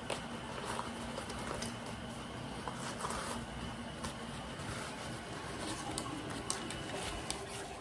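Small clicks and rustles of a new digital camera and its packaging being handled and unpacked, over a steady low background hum.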